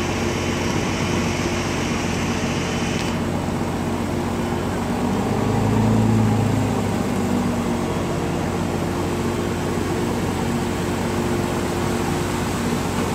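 Fishing boat's engine running with a steady drone, swelling louder for a moment about six seconds in.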